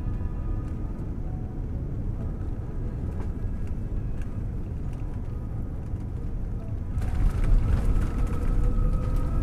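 Airliner cabin noise during landing: a steady low rumble of engines and rushing air, which turns suddenly louder and harsher about seven seconds in as the aircraft runs down the runway after touchdown.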